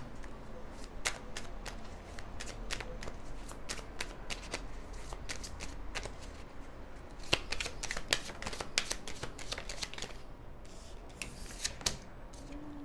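Tarot cards shuffled by hand: a steady run of soft flicks and clicks as the cards slide against each other. Near the end, cards are laid down on a wooden tabletop.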